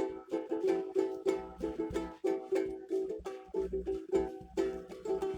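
Ukulele strummed in a steady, quick rhythm, ringing the same chord over and over.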